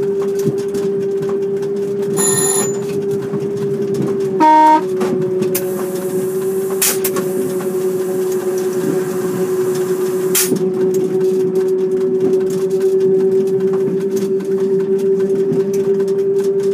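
Petit Train Jaune electric train running with a steady motor whine. A short, loud horn toot comes about four and a half seconds in.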